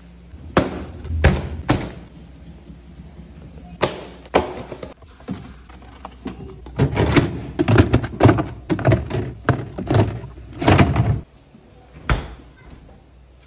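Plastic food containers knocking, clattering and scraping as they are slid onto a refrigerator shelf, followed by a single sharp thud about twelve seconds in as the refrigerator door shuts.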